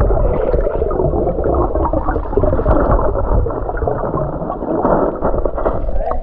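Muffled gurgling and churning of moving water, heard with the microphone under water. It is dull, with no high sound, and drops away sharply at the very end.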